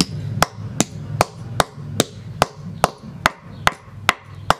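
A hand-held rock pounding a small metal spoon fishing lure against a concrete slab: hard, sharp knocks at an even pace of about two and a half a second.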